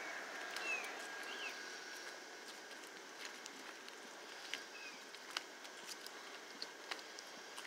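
Quiet outdoor ambience: a soft steady hiss with a few short, faint bird chirps that dip in pitch, and scattered light ticks.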